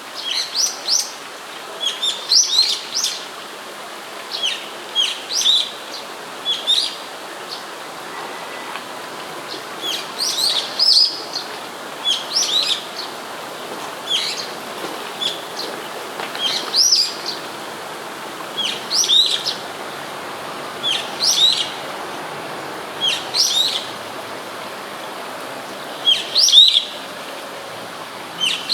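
Brown-eared bulbul calling repeatedly at fairly close range: short, sharp, high-pitched calls in clusters of two to four, every second or two, over a steady background hiss.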